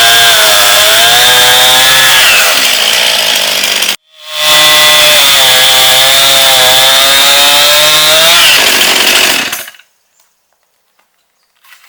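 Brand-new Stihl MS261 C two-stroke chainsaw running at high speed, its pitch wavering as it cuts through wood. The revs drop twice as the throttle is let off, once about two and a half seconds in and again near the end. The sound breaks off abruptly about four seconds in and fades out just before the end.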